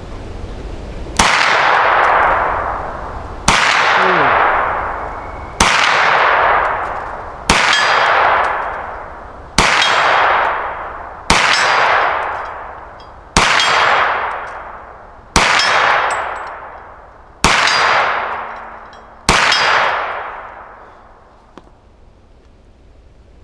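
Hi-Point 995 9mm carbine with a muzzle brake fired in slow, steady semi-automatic shots, ten in all about two seconds apart, emptying a 10-round magazine of steel-cased ammo. Each shot is a sharp crack followed by a long echo that dies away through the trees.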